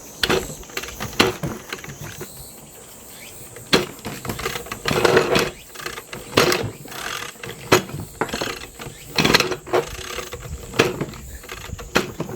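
Recoil starter of a Ryobi engine blower that will not run, pulled repeatedly: each pull gives a loud rattling, clattering clank instead of a normal starter whir. It is an abnormal noise from the starter or engine whose cause is not yet found.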